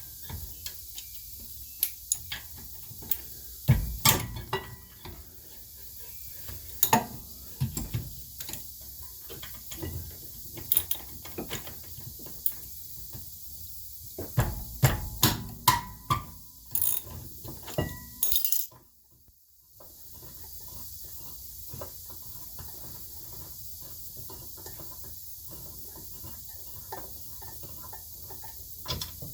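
Ratchet and socket clicking and metal clanking in scattered bursts as the 14 mm rear brake caliper bracket bolts are worked loose, with a brief drop-out about two-thirds of the way through.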